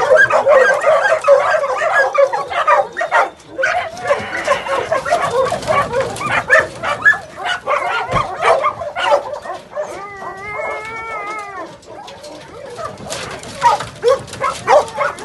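A pack of hunting dogs barking and yelping excitedly as they are let out of a dog trailer for the hunt, many barks overlapping and loudest at the start. About ten seconds in, one dog gives a long wavering howl.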